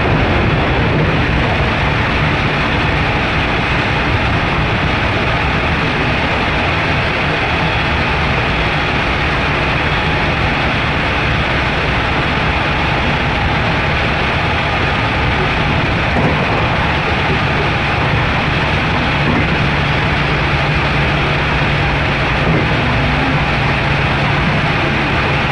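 Interior running noise of a JR West 207 series 1000 subseries EMU motor car with Toshiba GTO-VVVF traction equipment: steady rumble of wheels on rail mixed with traction motor hum at a constant speed, a low steady tone coming up more clearly near the end.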